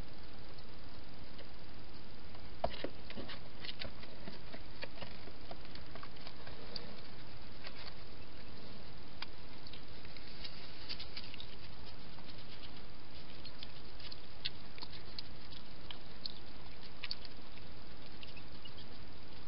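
Hedgehog eating and moving about: a scatter of small clicks, crunches and patters in irregular clusters over a steady hiss.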